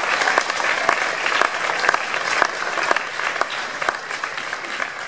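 Audience applauding, many hands clapping, gradually dying away toward the end.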